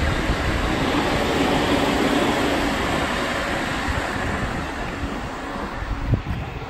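Long electric commuter train running along the tracks below, a steady rumble and rush of wheels on rails that fades as it pulls away.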